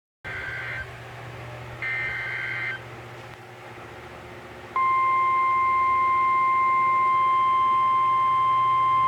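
Emergency Alert System signal: two short bursts of the SAME header data tones, then about five seconds in a loud, steady single-pitched attention tone starts and holds, over a low hum. This signals that a severe thunderstorm warning is about to be read.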